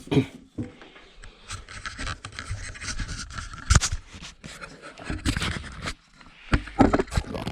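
Tumble dryer parts being handled and fitted by hand: irregular scraping and rubbing with scattered clicks and knocks, the sharpest knock about halfway through.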